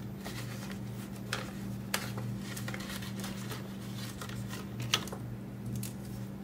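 Paper bills and envelopes being handled, with a few brief rustles and light taps, about four in all, over a steady low hum.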